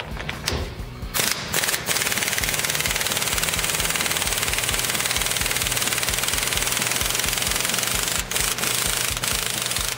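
Air impact wrench hammering rapidly as it drives a heavy-duty U-joint puller's forcing screw, pressing a seized bearing cup out of a truck driveshaft yoke. It starts about a second in, runs steadily, and pauses briefly twice near the end.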